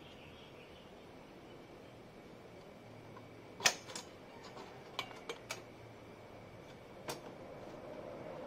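Socket wrench on a long extension clicking and knocking against metal while the exhaust elbow is bolted to a Yamaha Mio Soul i 125 scooter's cylinder head: a handful of sharp separate clicks, the loudest about three and a half seconds in. A low hum rises near the end.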